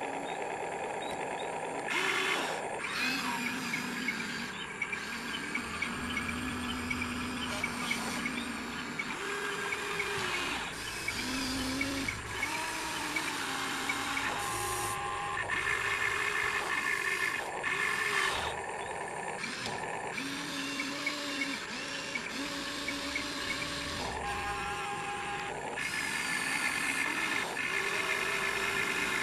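Small electric motors and gearboxes of a radio-controlled excavator whining in short runs, one to two seconds each, stopping and starting at different pitches as the boom, arm and tracks are worked.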